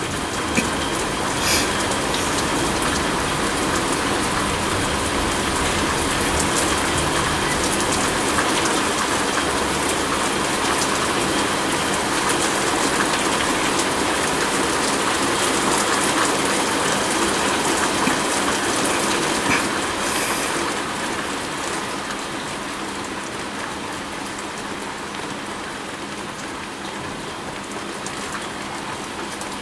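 Rain falling steadily, easing off a little about two-thirds of the way through.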